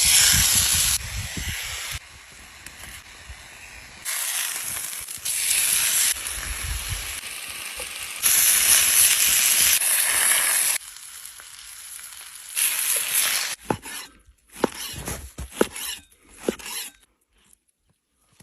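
Mutton sizzling as it fries, a steady hiss heard in several short stretches that start and stop abruptly. Toward the end come a few sharp clicks and knocks.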